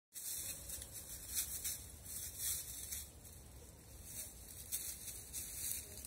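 Footsteps crunching and rustling through dry fallen leaves and grass, in irregular steps that are more frequent and louder in the first half.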